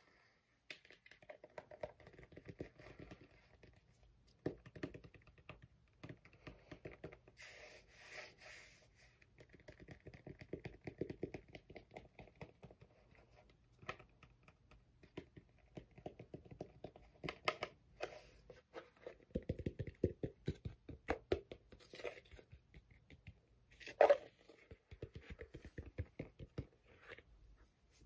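Fingertips and nails tapping and scratching on a fabric baseball cap in quick, irregular flurries, with one louder knock late on.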